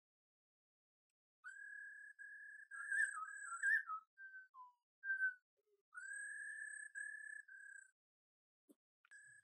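Puppies whining: a string of thin, high-pitched, mostly level cries, each about half a second to a second long with a short rise at the start, and a wavering stretch around three seconds in.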